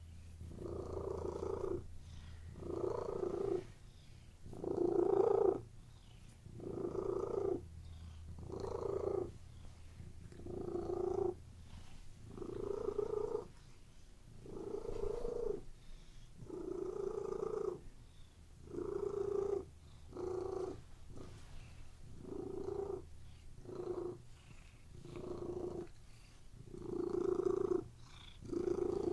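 Domestic cat purring: a low steady rumble that swells and fades with each breath, about once every two seconds.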